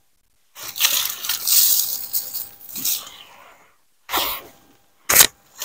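A handful of wood ash being scooped and scattered around garden plants: a dry rustling hiss that runs for about three seconds and fades. A brief scuff and a short knock follow near the end.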